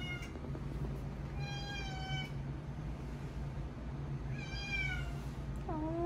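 Domestic cats meowing: two long, slightly falling meows about three seconds apart, then a lower, rising call near the end.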